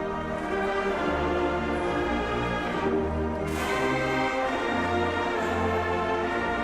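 Marching band brass playing sustained chords over deep tuba bass notes, with a bright crash about three and a half seconds in.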